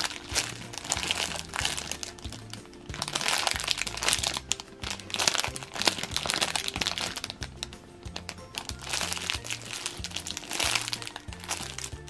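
Clear plastic bags crinkling as squishy foam toys sealed inside them are squeezed in the hands, over background music with a stepped bass line.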